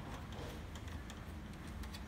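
Scattered small clicks of a screwdriver against the printer's plastic casing and internal parts as screws and panels are worked on, over a steady low hum.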